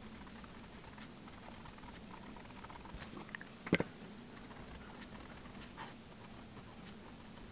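Pen nib scratching faintly on paper as words are handwritten, with scattered light ticks of the strokes and one sharper knock a little under four seconds in.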